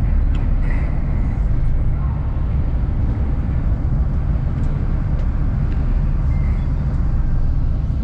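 Steady low rumble of a moving bus, engine and road noise heard from inside the bus.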